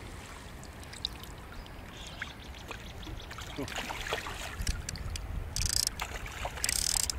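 A hooked trout thrashing at the river's surface, splashing the water in a string of short, sudden splashes that grow louder, with the two loudest near the end, over a steady water hiss.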